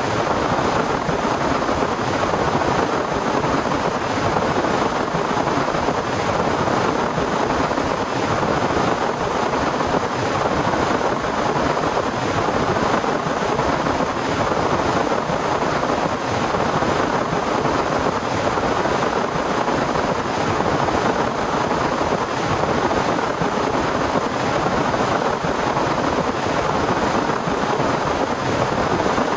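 Heavy rain pouring steadily, a dense even hiss of countless drops with no let-up.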